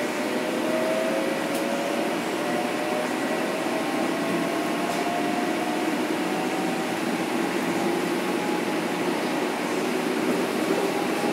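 Inside a Metro-North M7 electric multiple unit: the Mitsubishi IGBT inverter and AC traction motors whine, several tones rising slowly in pitch as the train picks up speed, over steady rolling and running noise.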